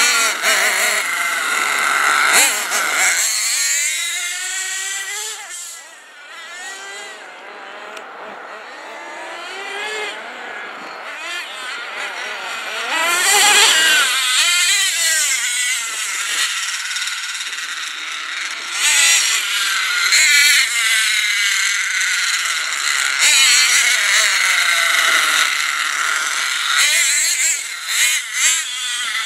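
The twin .26 nitro engines of a Hot Bodies GTX2 radio-controlled truck running and revving up and down, their high-pitched note rising and falling as the throttle changes. The sound fades after about six seconds and grows loud again from about thirteen seconds.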